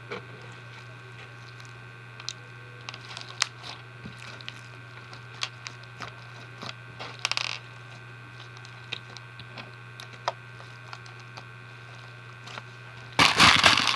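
Scattered small clicks and taps of fishbowl beads and slime being handled, then near the end a loud, dense rattle of fishbowl beads poured in, lasting about a second.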